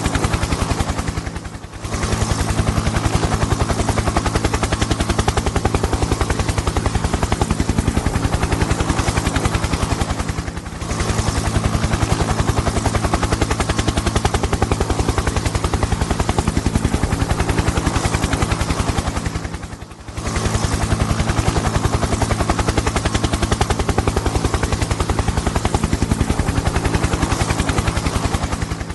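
Helicopter engine sound effect: rapid, even rotor chop over a steady engine drone. It briefly fades and swells back about every nine seconds, like a repeating loop.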